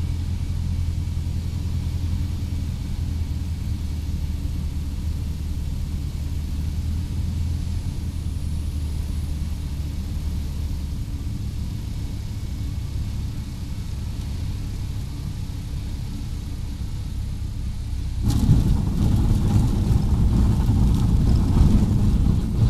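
Cessna 150's four-cylinder engine running at low power on final approach, its steady note dropping away about halfway through as the power comes off. Near the end a louder, rougher rumble and rattle starts as the wheels touch down and roll on a grass runway.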